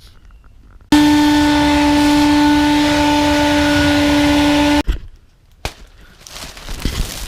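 Vacuum cleaner motor running with a steady whine over a rush of air. It starts suddenly about a second in and cuts off sharply about four seconds later. Quieter knocks and rustling follow near the end.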